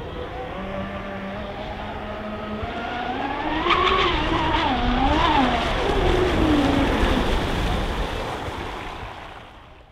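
A large RC offshore speed boat makes a fast pass at full speed. Its high-pitched motor whine and rushing water rise and swell to their loudest around four to six seconds in, waver in pitch, then fall away and fade out as it goes by.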